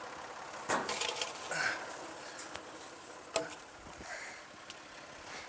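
A few scattered knocks and light clatter of a corrugated metal roofing sheet being shifted into place over a stack of sawn boards, with a sharp knock about a second in and another past the halfway point.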